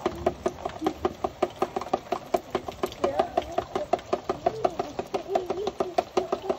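Rapid, fairly regular clicking, about four or five clicks a second, over a wavering pitched sound.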